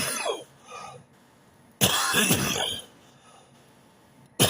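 A man coughing and clearing his throat in harsh bouts of about a second each, one about two seconds in and others at the start and end.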